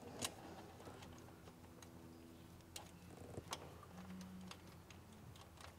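Faint, scattered clicks and light knocks, a handful in all, from parts being handled while a car's shifter is fitted.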